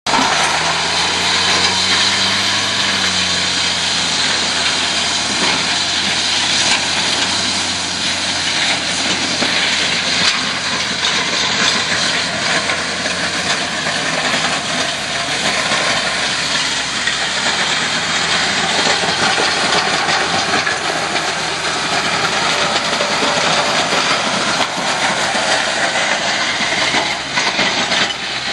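A plow truck's engine running under load while its front plow and wing blade push through loose dirt, with a loud, steady rushing hiss. The engine note rises and falls over the first few seconds.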